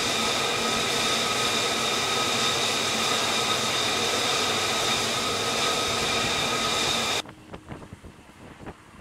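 Jet engine running on a carrier flight deck: a loud, steady turbine whine with several high steady tones over a rushing noise. It cuts off abruptly about seven seconds in, leaving wind buffeting the microphone.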